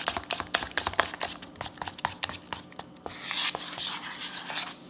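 A spoon stirring a thick yogurt and protein-powder mix in a bowl: quick, irregular clicks and knocks against the bowl, busiest in the first two seconds, with some softer scraping later.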